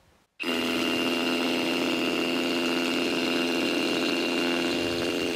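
Hilti Nuron TE 4-22 cordless SDS rotary hammer drilling into a concrete block with its dust-removal attachment, starting abruptly about half a second in and running steadily.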